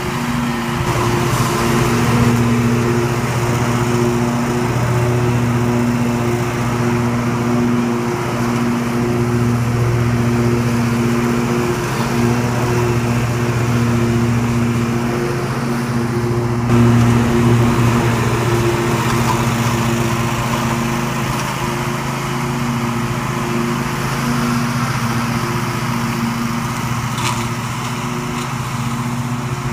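Grillo Climber MD22 ride-on mower's engine running at a steady speed while mowing grass, a constant pitched drone that is briefly louder about 17 seconds in.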